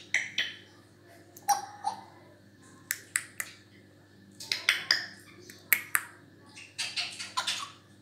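African grey parrot making short, sharp clicks and brief calls in small clusters every second or so.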